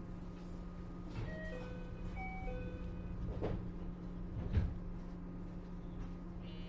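A standing 521-series electric train hums steadily while a short electronic chime of several notes plays about a second in, the kind of chime that sounds as the doors close for departure. A few sharp knocks follow, and a brief buzzy tone comes near the end.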